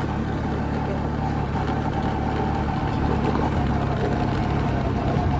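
Bajaj Chetak scooter engine running steadily under load as the scooter climbs a rough gravel dirt road.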